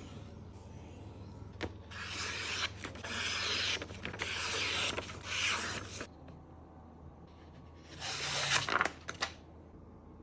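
Sharpening stone of a guided knife sharpener rubbing along a knife edge in a few long, raspy strokes, from about two to six seconds in and once more near the end.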